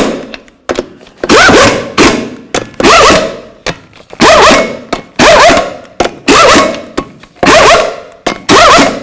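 Half-inch impact gun running in about eight short bursts, one lug nut after another, each burst with a rising and falling motor whine as it snugs the truck's wheel lug nuts down.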